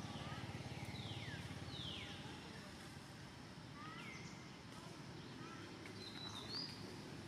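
Faint bird calls, a series of falling whistles repeated every second or two, with a short higher whistle near the end, over a low hum that eases after about two seconds.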